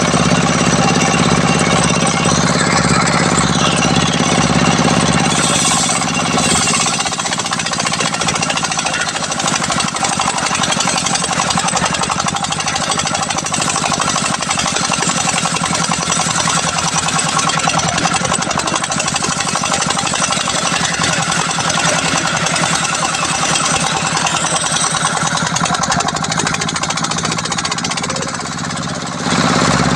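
A homemade sawmill's circular saw blade ripping a durian log into boards, driven by a stationary engine that runs loud and fast without a break. The deepest part of the sound thins out about seven seconds in.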